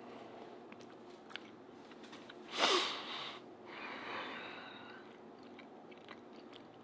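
A man chewing a mouthful of cooked king salmon, soft wet chewing sounds close to the microphone, with a loud breathy exhale about two and a half seconds in and a fainter one a second later.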